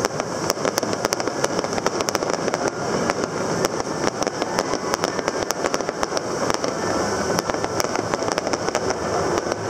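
Fireworks going off: a dense, continuous run of sharp pops and crackles from bursting shells.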